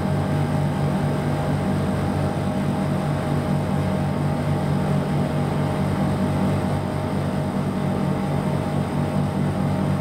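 Outdoor unit of an R410A heat-pump split air conditioner running in heating mode, compressor and outdoor fan going together as a steady hum with a faint steady tone above it. The fan is running again after cutting out at high pressure, and the high-side pressure is climbing.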